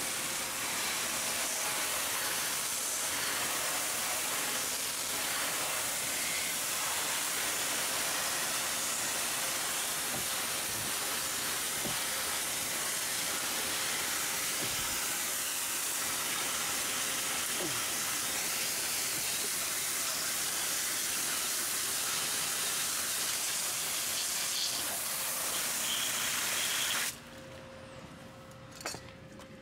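Pressure washer spray jetting water onto a riding mower's deck and body: a steady hiss that stops suddenly near the end when the trigger is released.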